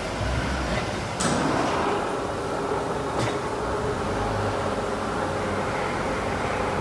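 A person jumping on hollow concrete blocks in a load test: a sharp thump about a second in, then a lighter one about two seconds later, over steady background noise.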